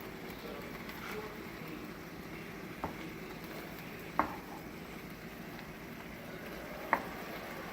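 Chicken strips sizzling in oil in a frying pan, a steady frying hiss, with three short sharp clicks spread through it.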